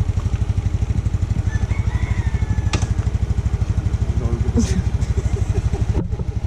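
Motor scooter's small single-cylinder engine idling steadily, pulsing about a dozen times a second, with a couple of sharp clicks from gear being strapped on.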